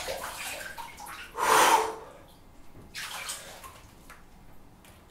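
Ice-bath water splashing and sloshing in a bathtub as a person stands and climbs out, with one loud splash about a second and a half in and a smaller one around three seconds in.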